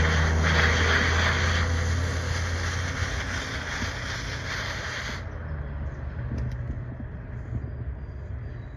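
Brood X periodical cicadas chorusing, a dense steady high drone that cuts off suddenly about five seconds in, over a steady low hum.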